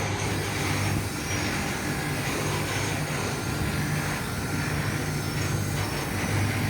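Truck engine running steadily with a low drone.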